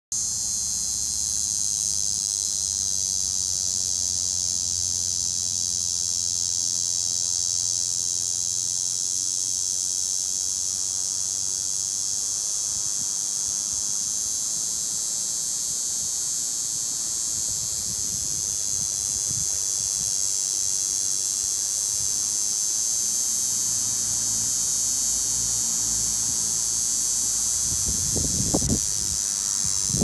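Cicadas singing: a noisy, steady, high-pitched buzz that never lets up, with a few low bumps near the end.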